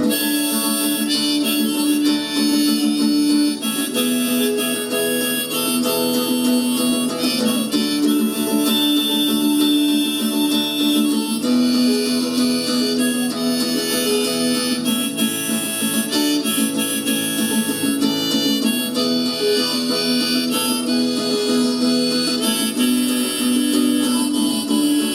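Harmonica solo over strummed acoustic guitar, an instrumental break in a song.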